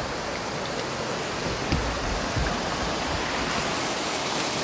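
Rushing water of a small waterfall and fast, rocky river: a steady, even rush, with a brief low thump about two seconds in.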